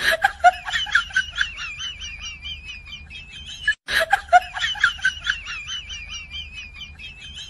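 Comic sound effect of rapid, high-pitched giggling, about four chirpy notes a second, looped so that it cuts out for an instant and starts over about every four seconds.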